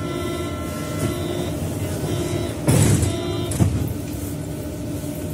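Berlin U-Bahn class H train standing at the platform, its onboard equipment humming steadily. About three seconds in comes a loud burst of noise followed by a knock, as the sliding doors shut after the stand-clear call.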